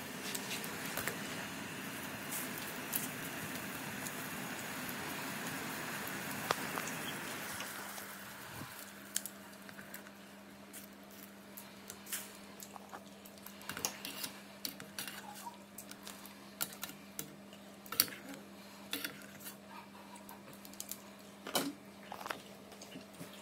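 A utensil clinking and scraping against a metal pot of cooking ramyun noodles: scattered sharp clicks throughout. A steady rushing noise fills the first several seconds and then fades, leaving a low steady hum.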